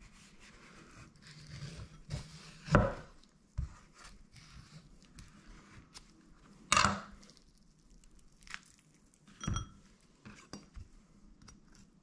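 A chef's knife cutting an avocado on a wooden cutting board: soft cutting and handling sounds broken by a few sharp knocks and clinks. The loudest comes about three seconds in, with others near the middle and near the end.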